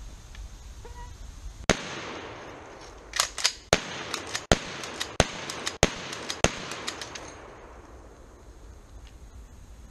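Savage 12-gauge shotgun firing a series of sharp blasts into a flat-screen TV. A single shot comes about 2 seconds in, then a quick run of about five blasts roughly two-thirds of a second apart, with smaller cracks mixed among them, each trailing a short echo.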